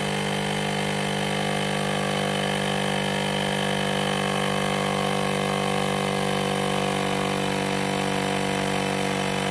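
VIL battery-powered portable tire inflator's compressor running with a steady hum, pumping air into a bicycle tire as the pressure rises.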